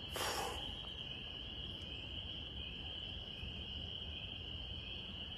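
Steady, high-pitched evening chorus of crickets, with a brief rustle right at the start.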